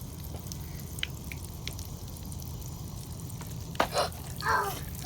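Pop Rocks candy crackling, with scattered small pops and a fizz over a low steady hum. A sharp knock comes near the end, followed by a brief voice sound.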